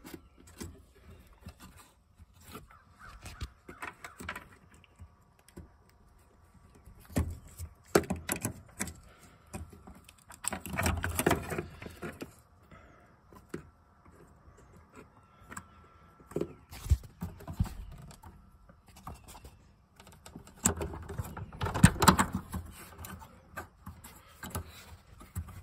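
Hands unplugging the electrical connector and working the fuel hose fittings on a fuel pump assembly: scattered plastic clicks and rustling, with a few louder spells of clattering handling noise.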